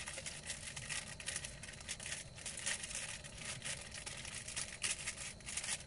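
Thin clear plastic bag crinkling and rustling as it is pulled off a plastic part, a dense run of crackles.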